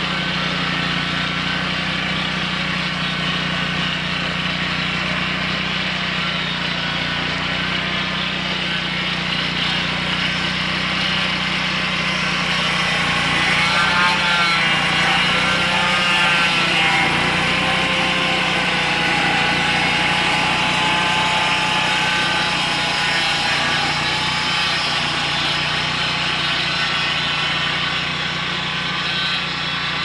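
Portable band sawmill's engine running steadily while the band blade cuts through a log. The sound swells slightly, with a wavering whine, as the saw head passes overhead about halfway through.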